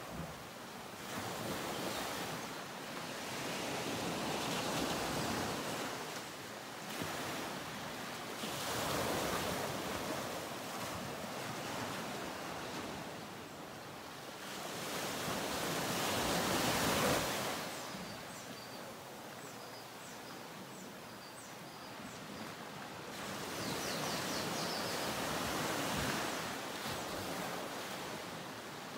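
Ocean surf washing in, swelling and easing every few seconds, with a few faint high chirps in the second half.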